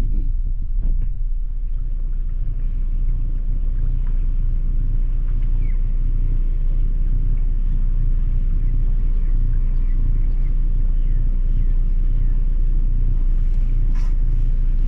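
Sailboat's inboard engine running steadily at low revs in forward gear: a continuous low rumble as the boat glides slowly in to dock.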